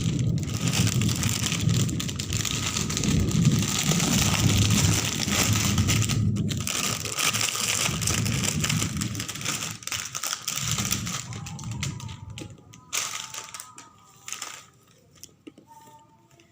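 Plastic packaging crinkling and rustling loudly as it is handled and torn open, breaking off briefly a couple of times, then dying down about eleven seconds in to light rustles and clicks.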